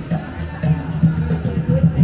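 Music with a steady drum beat, about three strokes a second, and a melody over it.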